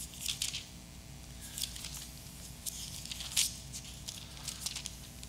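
Thin Bible pages being turned and rustled by hand: several soft, papery swishes at irregular moments.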